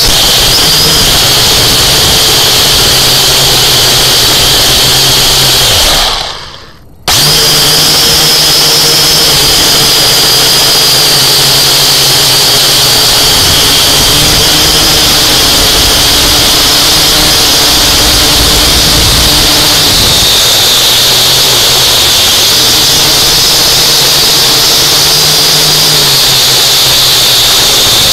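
Small camera drone's electric motors and propellers whining steadily, loud and close, as picked up by the drone's own microphone. About six seconds in the whine dies away over a second, then starts again abruptly.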